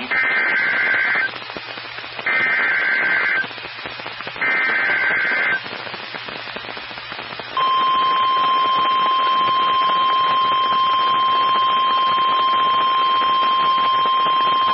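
NOAA Weather Radio Emergency Alert System alert: three bursts of SAME digital header tones, each about a second long with about a second between them, then, about seven and a half seconds in, the steady one-pitch 1050 Hz warning alarm tone starts and holds. The tones announce a severe thunderstorm warning.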